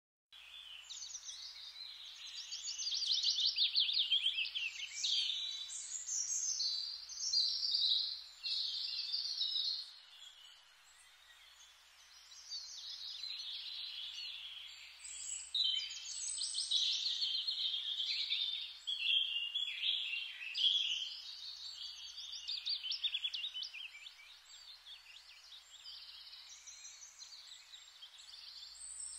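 Birds singing: a busy chorus of fast trills and chirps, with a quieter spell about ten seconds in.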